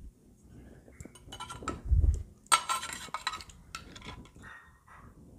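Steel spoon scraping and clinking against the inside of a clay handi as it scoops through mutton curry, with a dull thump about two seconds in and the loudest scrape just after.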